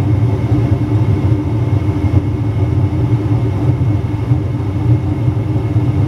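Armstrong 80,000 BTU gas furnace firing with its gas burners lit: a steady low drone with a faint steady tone above it.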